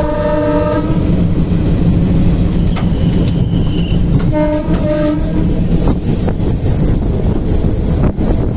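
Train horn sounding, cutting off about a second in, then a second short blast about four and a half seconds in, over the steady rumble of a running train.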